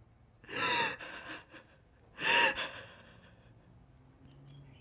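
A woman crying: two loud, gasping sobs about a second and a half apart, each with a short voiced catch, followed by a few smaller shaky breaths.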